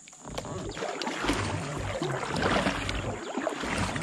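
Water splashing and gurgling around a kayak being paddled on a river, a steady run of small splashes and trickles.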